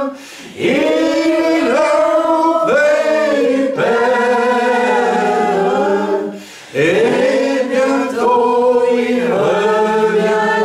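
Voices singing a slow worship song together, long held notes with two short breaks, one just after the start and one about six and a half seconds in.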